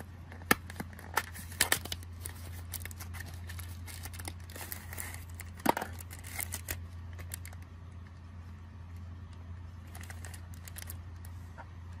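Hands handling packaging in a boxed doorbell kit: sharp clicks and taps of parts against the plastic box tray, several in the first two seconds and one more about six seconds in, with a clear plastic accessory bag crinkling. A steady low hum runs underneath.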